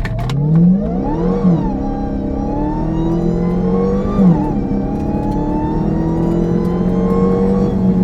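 Dodge Hellcat's supercharged 6.2-litre HEMI V8 accelerating hard through the gears: the revs climb, drop sharply at upshifts about one and a half seconds in and again about four seconds in, then climb steadily once more, with a high supercharger whine rising along with the engine.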